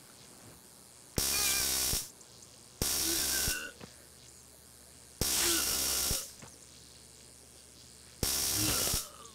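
Taser (stun gun) crackling in four short electric bursts, each under a second, cutting in and stopping sharply.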